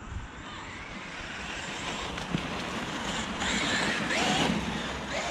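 Traxxas Maxx RC monster truck with a Surpass 4076 2200kv brushless motor driving over sand, its motor and tyres growing louder and loudest about four seconds in.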